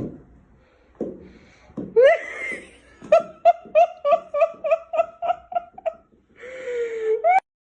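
High-pitched laughter: a quick, even run of about a dozen 'ha' pulses, about four a second, followed by a short held, slightly falling wail.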